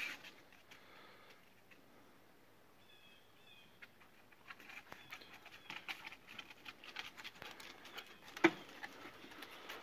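Dogs' claws scrabbling and clicking against house siding and deck boards: a scatter of quick clicks from about halfway through, with one sharp knock near the end.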